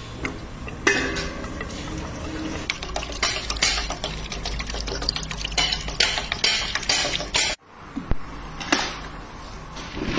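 Metal clinks and scrapes against a steel pot as groundnut oil runs from a stone oil press's spout into it, over the low steady rumble of the running mill. The sound breaks off for an instant about seven and a half seconds in.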